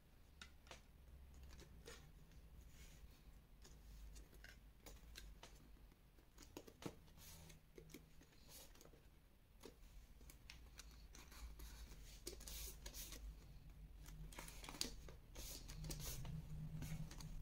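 Faint rustles and scattered light taps of cardstock being handled and pressed flat by hand, over a low room hum.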